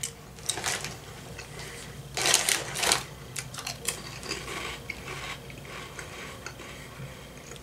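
Crinkly snack bag rustling and a puffed black bean veggie snack crunching as it is eaten: bursts of crackle, the loudest about two seconds in, with lighter ticks of chewing after.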